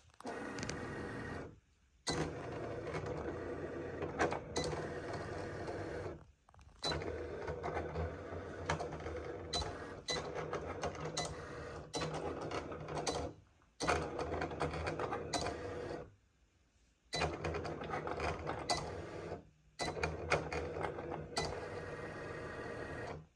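Cricut vinyl cutter cutting vinyl on its mat: the motors whir as the blade carriage and rollers move, in runs of a few seconds broken by short pauses, with small clicks.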